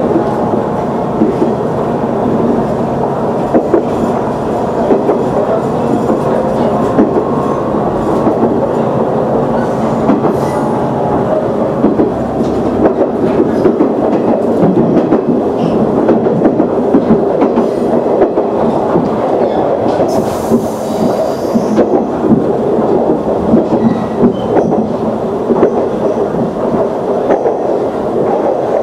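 KiHa 110 diesel railcar running, heard from the cab: a steady engine and running noise with wheels clicking over rail joints and points. A brief hiss comes about twenty seconds in.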